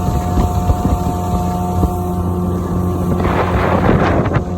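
Small boat's outboard motor running steadily at speed, with a burst of rushing water and wind noise about three seconds in.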